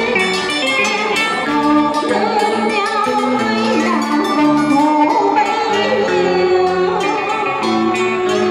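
Live cải lương music: an electric guitar and a đàn tranh zither play a traditional Vietnamese melody with held, wavering notes, with a singer's voice at times.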